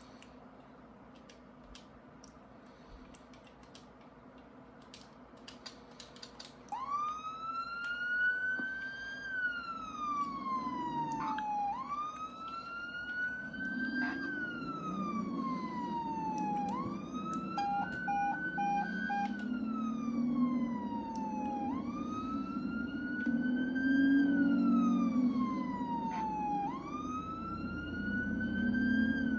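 A siren starts up about seven seconds in and wails, rising and then falling in pitch in a slow cycle about every five seconds. A few short beeps cut across it midway.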